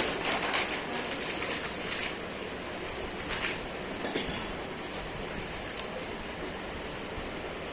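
Handling noises as sticker sheets and packaging are shown: a few short rustles and crinkles around the start, near the middle and again a little later, over a steady background hiss.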